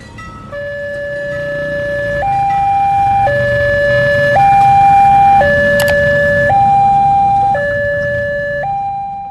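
Two-tone hi-lo emergency-vehicle siren, swapping between a lower and a higher note about once a second, over a low vehicle rumble. It swells louder toward the middle and fades away near the end.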